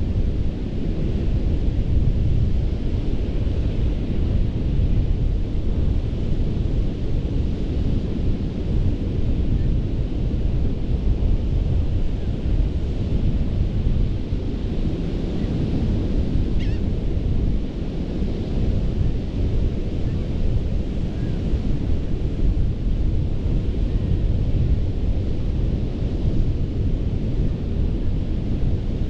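Ocean surf washing onto a sandy beach, a steady rushing of waves under a heavy low rumble of wind buffeting the microphone.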